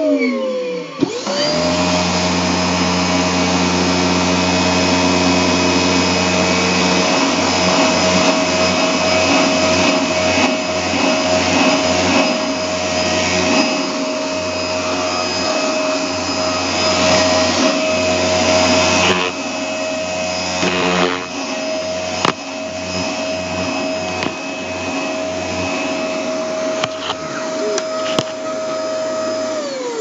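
Dyson DC24 ball upright vacuum cleaner's motor spinning up about a second in and running with a steady whine as it vacuums dirt from a carpet, a lower hum underneath cutting in and out repeatedly; the motor spins down near the end.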